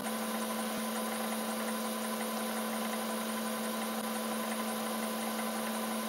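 Bridgeport-style vertical milling machine running with a steady, even hum as a 5 mm carbide end mill is eased slowly into a sheared steel bolt.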